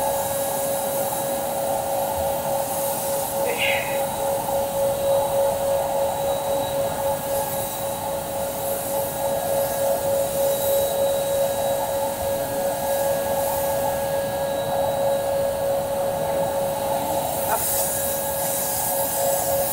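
Steady whine of a motor-driven blower: one constant tone over a rush of air, running evenly without change.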